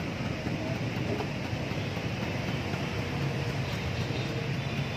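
Steady traffic rumble from motorbikes and cars on a nearby city street.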